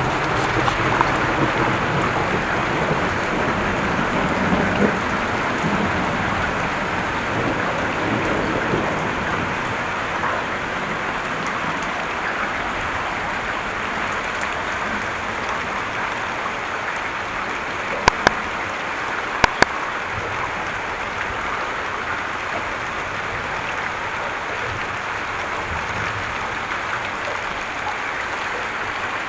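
Heavy rain falling steadily, its even hiss of drops on the ground and surfaces, with a low thunder rumble dying away over the first several seconds. About two-thirds of the way through come two quick pairs of sharp clicks.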